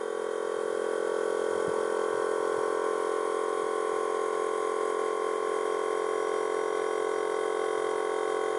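Electric air-suspension compressor running with a steady, not-at-all-quiet drone as it charges the air tank and lifts the air bags. It is wired straight to power rather than to its pressure sensor, so it runs without cutting out.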